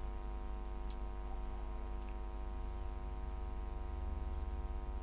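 Steady electrical mains hum with a few faint ticks.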